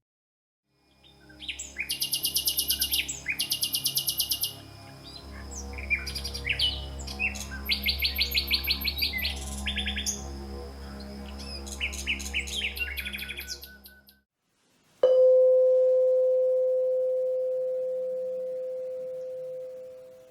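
Birds singing in quick repeated trills over a low steady drone for about fourteen seconds. A pause follows, then a single struck metal tone rings out, clear and steady, and slowly fades away.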